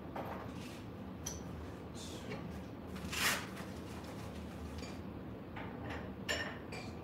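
Scattered light clicks and knocks from parts and tools being handled on a router table, with one louder scraping rustle about three seconds in, over a steady low hum.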